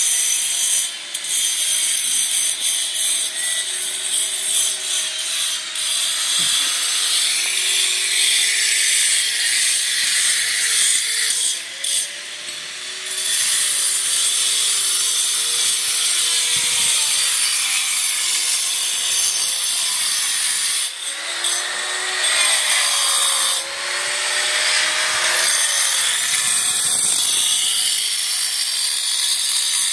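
Handheld power grinder cutting stone: a steady high hiss, with the motor's pitch sagging and recovering every few seconds as the blade bites.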